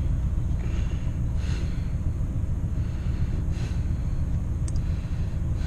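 A person breathing audibly through the nose three times, about two seconds apart, over a steady low rumble inside a parked car.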